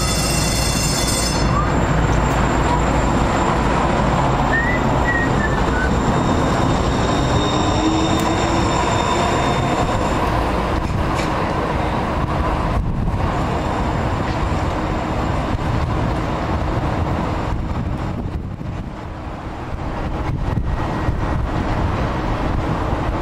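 TriMet MAX light rail train pulling away from the platform on street-running track, its electric traction motors whining up in pitch as it gathers speed over steady wheel-on-rail noise. A short high-pitched tone sounds at the very start.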